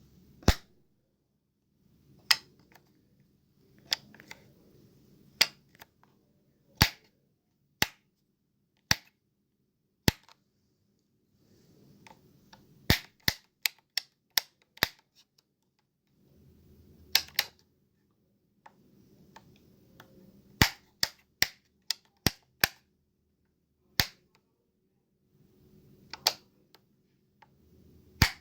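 Light switch flicked on and off over and over: sharp single clicks at irregular spacing, sometimes in quick runs of two to four, with a faint low rumble between some of them.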